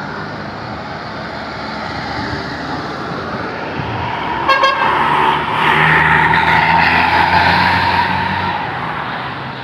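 Traffic noise as a bus goes by. About four and a half seconds in a bus horn gives one short pitched toot. Then comes a louder stretch of about three seconds: engine rumble with a strong horn-like tone in it as the bus passes close.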